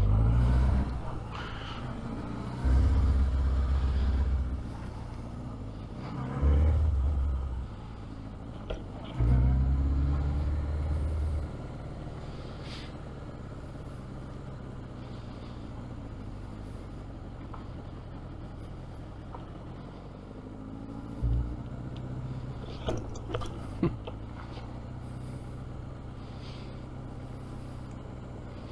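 Road vehicle noise: four loud low rumbles with rising and falling pitch in the first twelve seconds, then a steady low hum broken by a few sharp clicks.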